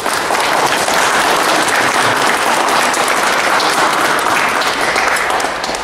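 Audience applauding: dense, steady clapping that starts suddenly and dies down near the end.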